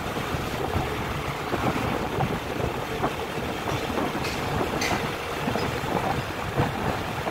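Wind buffeting the microphone while riding along a street, with road and traffic noise underneath.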